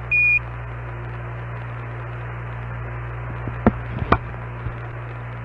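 A short high beep of the Quindar tone marking the end of Houston's transmission, followed by the steady hiss and hum of the open Apollo air-to-ground radio link, with a couple of faint clicks past the middle.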